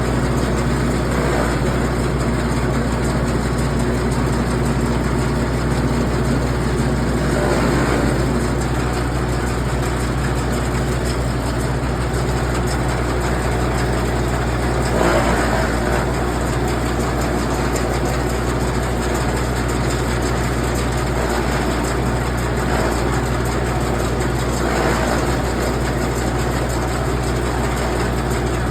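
An engine running steadily at idle, with a few brief louder swells.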